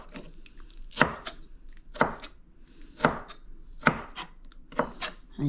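Knife chopping on a cutting board, sharp single strokes about once a second.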